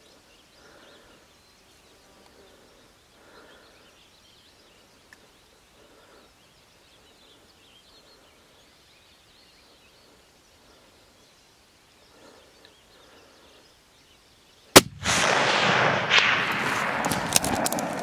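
A long faint quiet outdoors, then a single hunting-rifle shot about fifteen seconds in. Loud rustling and handling noise close to the microphone follows, with several sharp clicks.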